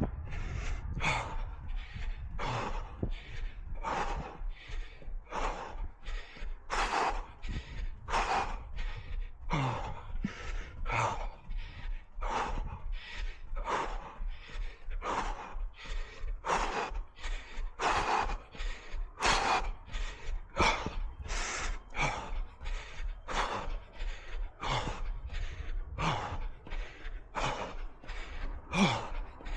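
A runner's hard, rhythmic breathing, quick even puffs in and out, with a low rumble of wind or movement on the microphone beneath.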